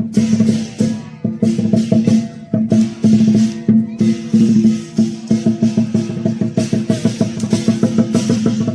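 Lion dance percussion: a drum beaten in fast, continuous strokes, with cymbals clashing in repeated bursts and ringing tones underneath.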